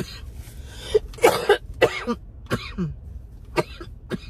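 A woman coughing repeatedly: about half a dozen short coughs, the loudest a little over a second in.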